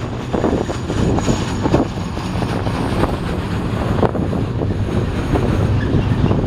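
Freight train of enclosed autorack cars rolling past: a steady rumble of steel wheels on rail, with irregular clanks and clicks from the wheels and couplers.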